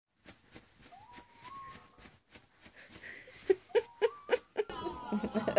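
Sleeping dog whimpering: a soft rising whine, then a run of short, high squeaks, with a person laughing quietly near the end.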